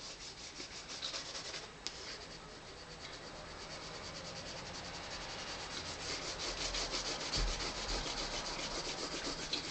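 Coloured pencil rubbing on sketchbook paper in quick, light back-and-forth shading strokes, growing louder in the second half.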